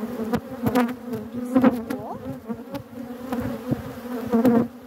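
Honeybees buzzing thickly over an opened hive, a steady drone with single bees zipping past close to the microphone, their pitch sliding up or down as each one passes. A few sharp ticks are scattered through it.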